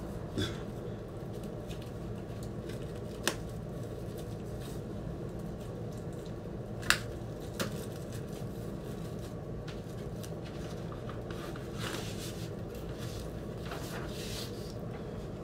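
Handling noise as a vinyl LP is worked out of its packaging and sleeve: four sharp clicks or taps spread over the first half, then a couple of short soft paper-sliding rustles, over a steady low hum.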